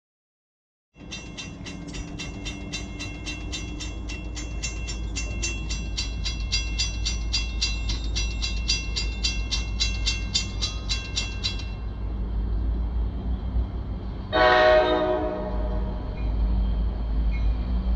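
Railroad grade-crossing bells ring in rapid, even strokes while the gates come down, then stop. A couple of seconds later an approaching MARC commuter train sounds its horn in one short blast, over the low rumble of the train drawing near.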